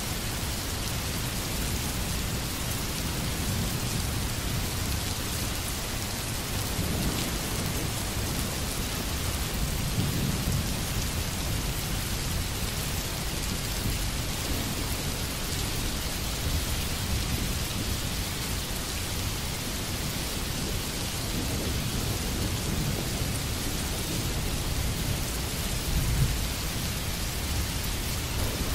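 Steady rain hiss with low rumbles of thunder that swell now and then, one more sharply near the end.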